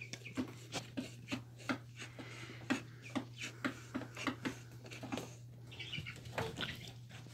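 Newfoundland puppy licking peanut butter out of a jar: a run of short, irregular lapping and smacking sounds, a few a second, over a steady low hum.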